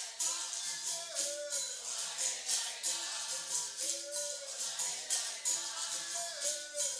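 Capoeira roda music: a quick, steady rhythm of rattling berimbau shakers and pandeiro jingles over repeated low notes, with voices singing a chant.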